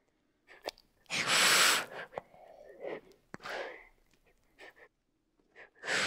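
An animal's forceful breaths: three short, hissy bursts about two seconds apart, the loudest about a second in, with a few faint clicks between them.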